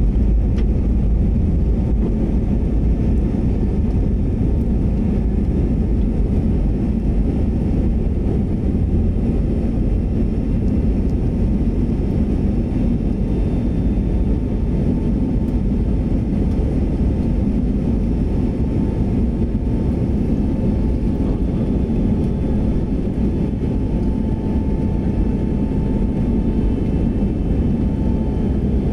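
Jet airliner's turbofan engines and airflow during the climb after takeoff, heard inside the cabin as a steady low rumble with a faint steady whine above it.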